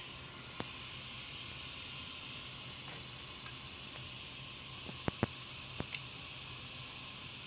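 Prusa i3 MK2 3D printer running with a steady hiss and low hum, with a few sharp clicks, most of them bunched together around five to six seconds in.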